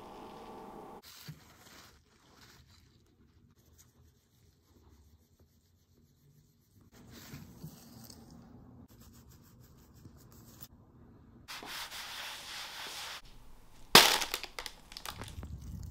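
Quiet rubbing and rustling handling noises with a short hiss, then about fourteen seconds in a sharp, loud crackle of plastic as waste drops into a black bin bag, followed by rustling.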